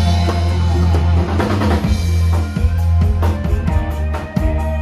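Live dangdut koplo band through a large PA: a drum kit played with sticks in quick snare and cymbal strikes over a deep, steady bass.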